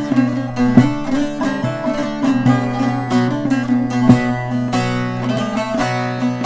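Short-neck bağlama with a mulberry-wood bowl, played with a plectrum: a quickly picked folk melody over a steady low drone of open strings. The notes are left ringing toward the end.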